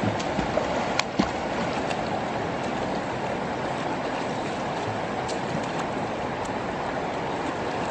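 Steady sloshing and swishing of river water as people wade through it waist-deep, with a couple of sharp knocks about a second in.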